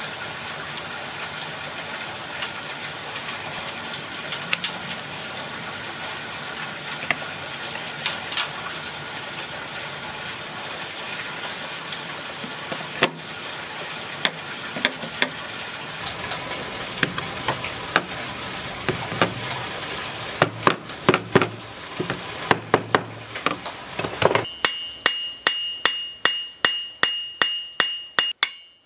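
A steady hiss with scattered crackles and clicks, turning to irregular knocks, then near the end a hammer striking steel at about two blows a second, each blow ringing with a high metallic tone.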